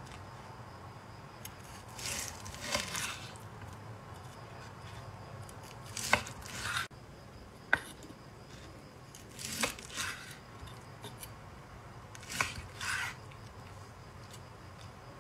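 Knife slicing a seared ribeye steak on a wooden cutting board: about five cuts a few seconds apart, each a short scraping rasp through the crust with a sharp tap of the blade on the board.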